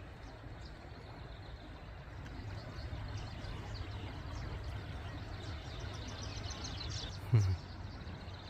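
Small birds chirping repeatedly over a steady low outdoor rumble, with one short, louder low sound with a falling pitch near the end.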